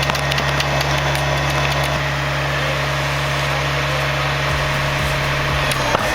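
An engine running steadily at an even, idle-like pace, with a low hum and a few faint clicks over it.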